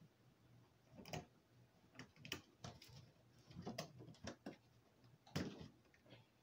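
Faint, irregularly spaced clicks and light knocks, the loudest about five seconds in, over a low steady hum.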